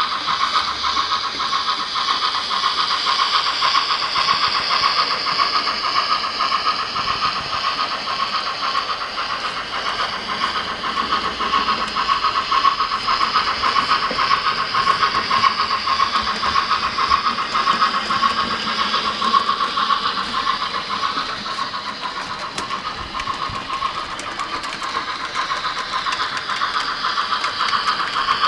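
Hornby DCC sound decoder in a model GWR Castle-class steam locomotive playing steady, rapid steam chuffs through its small onboard speaker as the model runs with its coaches, with little bass.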